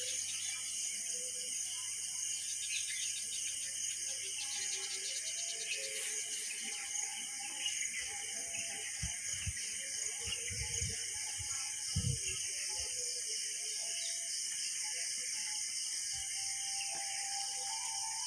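Steady high-pitched insect chorus with faint, scattered bird calls, and a few low thumps about halfway through.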